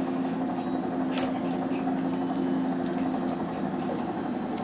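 Steady mechanical hum, with a sharp click about a second in and a brief, faint, high-pitched electronic beeping about two seconds in.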